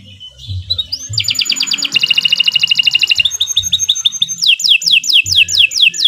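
Domestic canary singing: a rising note, then a very fast trill of repeated notes, a slower run of notes, and then a series of falling whistled sweeps, about three a second.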